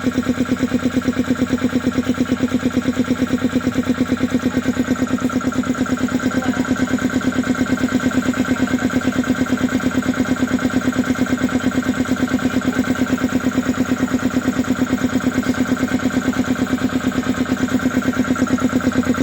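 SWAN 1 hp piston air compressor driven by an electric motor, running steadily with a rapid, even pulsing beat.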